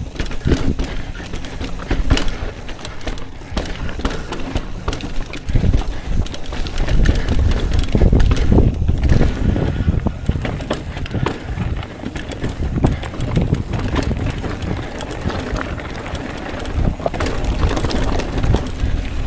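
Mountain bike riding over a rocky trail: the tyres and frame knock and clatter over rocks, with many sharp rattles. Wind buffets the microphone in a heavy rumble that swells and fades.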